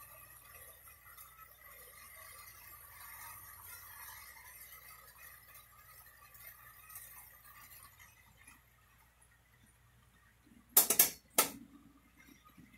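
A faint steady hum with thin whining tones, then two sharp clinks close together about 11 seconds in, like hard metal or glass being knocked.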